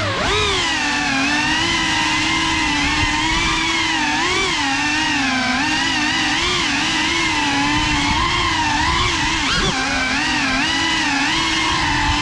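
GEPRC 3.5-inch cinewhoop's brushless motors and ducted propellers whining, the pitch rising and falling constantly with throttle, with a quick drop and rise about ten seconds in.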